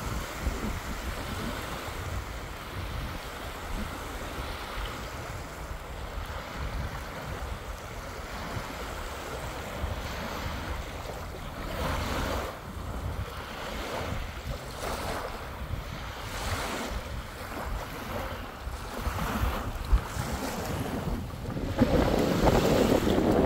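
Small Lake Superior waves lapping and washing up onto a sandy beach, swelling in repeated washes, with a louder wash near the end. Wind noise rumbles on the microphone throughout.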